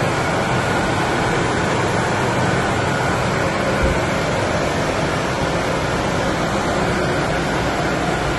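Steam boiler's forced-draft gas burner running: a steady, even noise with a low hum and faint steady tones underneath, and a brief low bump about four seconds in.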